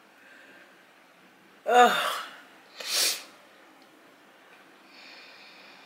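A woman's sudden loud vocal burst, falling in pitch, followed about a second later by a short, sharp rush of breath.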